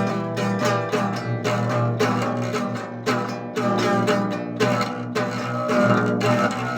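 Music led by a plucked acoustic guitar with busy picked notes.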